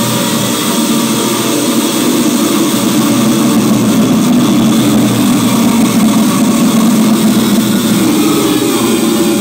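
Live electronic noise music: a loud, dense, steady wall of noise with a low droning hum, getting slightly louder about two seconds in.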